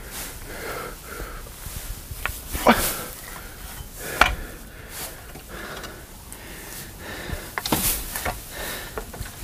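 Small square hay bales being handled and stacked: scattered knocks and thuds with a faint rustle of hay in between.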